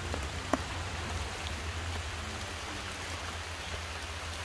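Steady rain falling, with a constant low rumble underneath and a single sharp tap about half a second in.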